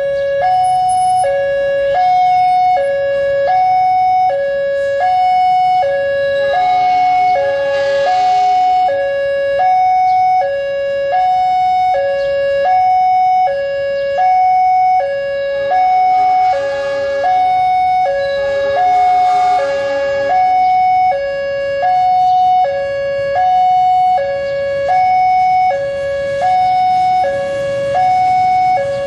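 Electronic two-tone warning alarm, a higher and a lower note swapping back and forth about every 0.8 s without a break, the kind sounded at a railway level crossing as a train approaches. A few stretches of noise from the moving train rise underneath it.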